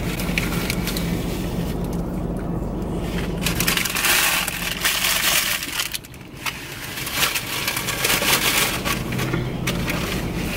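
Crumpled paper food wrapper being handled and scrunched: a crackling rustle that comes and goes in two stretches, over a steady low hum.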